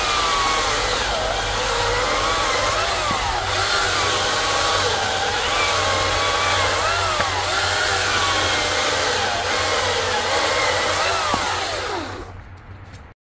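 Greenworks Commercial 82V cordless electric chainsaw cutting through a log: a steady motor-and-chain whine whose pitch wavers as the cut loads it, gliding down near the end as the saw spins down, then cutting off suddenly.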